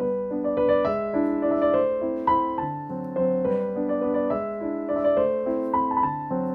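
Background piano music: a gentle melody of single notes and chords at an even pace.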